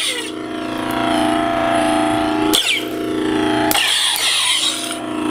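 Neopixel lightsaber's Plecter Labs Pixel sound board playing its electronic blade hum through the hilt speaker, wavering in pitch as the lit blade is moved. Two louder swing effects come about two and a half and about four seconds in.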